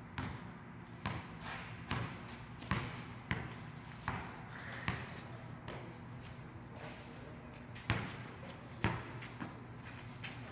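Basketball being dribbled on a wet concrete court: sharp bounces about once a second through the first half, a short lull, then two more bounces near the end.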